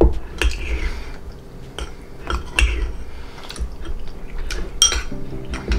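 Metal spoon clinking against a ceramic bowl and scooping rice, with chewing between the clicks. One sharp, ringing clink comes near the end.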